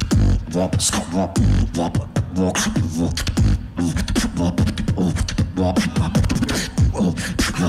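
Solo competition beatboxing amplified through a handheld microphone: a fast, dense rhythm of sharp snare-like clicks over deep bass kicks, woven with pitched vocal tones.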